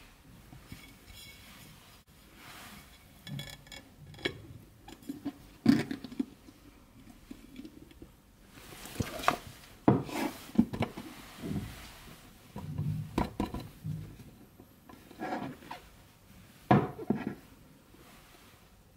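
Handling noises from a silicone bundt mould full of set jelly dessert being turned over onto a plate and worked loose: irregular knocks of mould and plate on the worktop with scraping and rubbing of the silicone in between.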